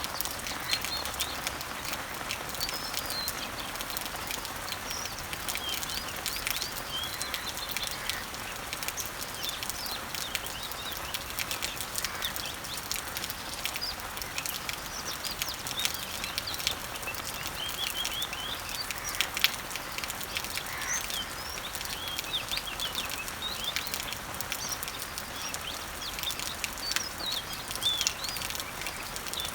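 Summer rain pattering steadily on garden leaves and trees, with many individual drops ticking. Birds chirp in short, repeated calls throughout.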